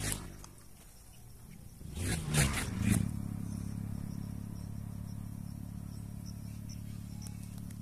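An engine revs in a few short bursts about two seconds in, then runs steadily at a low, even pitch.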